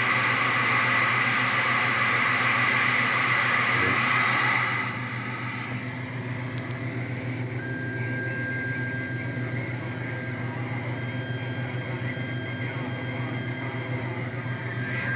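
CB radio receiver hissing with open static for about five seconds, then the hiss cuts off. A steady electrical hum with faint whining tones remains.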